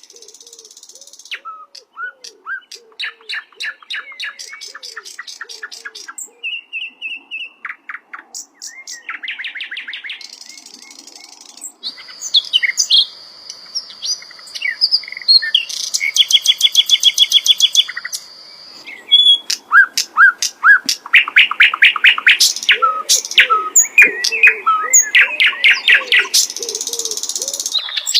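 Sikatan londo flycatcher singing a long, loud, varied song of rapid chirps, trills and whistles, including a held high whistle midway. A lower repeated note runs underneath at the start and again near the end.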